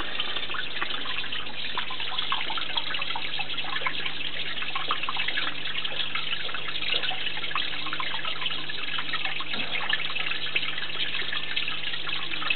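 Water trickling and splashing steadily from a vivarium waterfall, with a faint low hum underneath.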